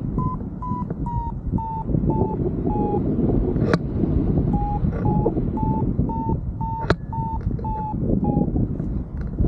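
Paragliding variometer beeping, about three short beeps a second that rise then fall in pitch, in two runs with a pause between them: the vario signalling lift, as in a thermal. Wind rushes on the microphone throughout, and two sharp clicks come through.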